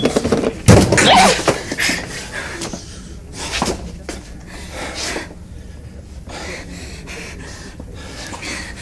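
A scuffle: a woman cries out and gasps in strain while being held, with clothes rustling and heavy breathing. It is loudest in the first second or so, then dies down to softer breaths and rustles.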